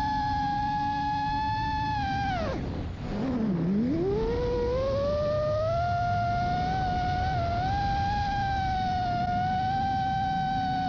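FPV quadcopter's motors whining at a steady high pitch over a rush of wind. About two and a half seconds in the pitch drops steeply as the throttle is cut, then climbs back over a couple of seconds as power comes back on.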